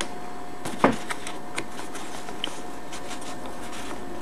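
Paper leaflets and packaging being handled: a soft knock just under a second in, then scattered light rustles and ticks. Underneath is a steady hiss with a faint constant hum tone.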